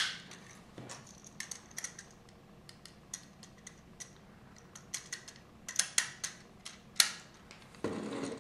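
Hard plastic Lego pieces clicking and snapping together as a propeller thruster is pressed onto a small submarine model, with scattered sharp clicks and handling rattles, a few louder snaps, and a brief rustle of handling near the end.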